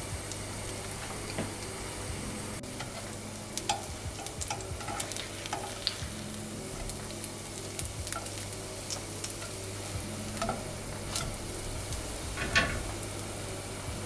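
Breaded chicken patties frying in shallow oil in a nonstick pan, a steady sizzle with small crackles. A slotted spatula scrapes and taps against the pan several times as the patties are flipped, the loudest scrape near the end.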